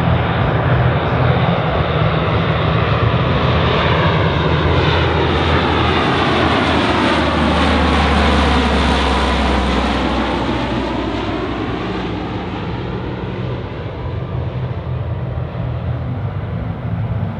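Lockheed C-130E Hercules' four Allison T56 turboprop engines running as the aircraft makes a low pass, the sound sweeping as it goes by about eight seconds in, then easing off slightly as it flies away.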